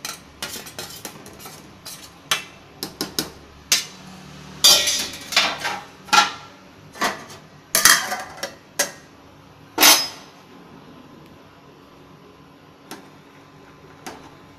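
Aluminium cooking pot, lid and ladle clattering: a run of metal clinks and clanks, the loudest in the middle, dying away about two-thirds through to a couple of faint taps near the end.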